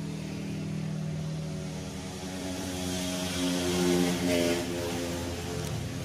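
A steady engine drone holding one pitch, a little louder around the middle.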